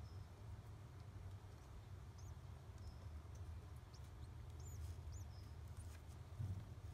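Faint, high, short squeaks from a newly hatched pigeon squab, several peeps scattered through the middle, over a steady low rumble.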